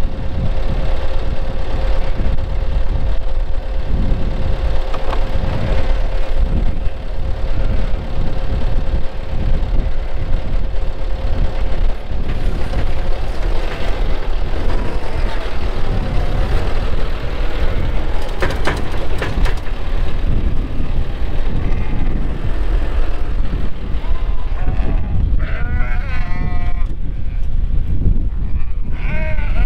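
Tractor engine running steadily while manure is piled, with a steady whine that stops about twelve seconds in. Sheep bleat over it from about the middle on, several calls close together near the end.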